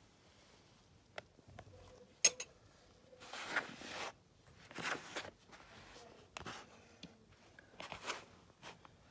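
Kinetic sand being scraped, crumbled and swept by hand across a plastic tray, heard as several short scratchy rustles. There is a sharp plastic click a little over two seconds in.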